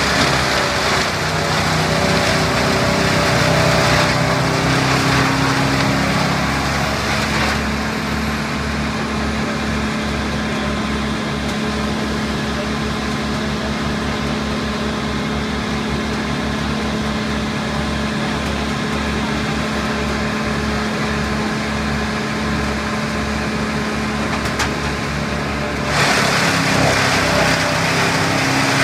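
Bandit tree chipper's engine running hard and steady, with a louder rushing, grinding noise of spruce trees being fed through and chipped for the first several seconds and again near the end.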